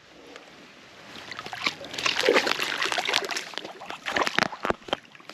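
Water splashing and sloshing in quick irregular bursts as a hooked bass thrashes at the surface while being brought in, starting about a second in and loudest in the middle.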